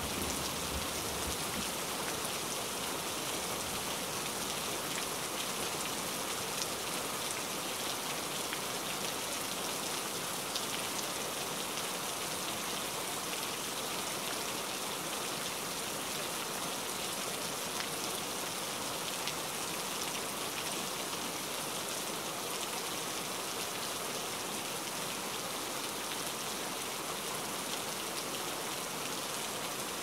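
Steady rain falling on leafy foliage: an even hiss with scattered drop ticks.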